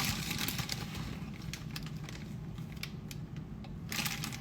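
Light, irregular clicks and taps of kitchen work over a low steady hum.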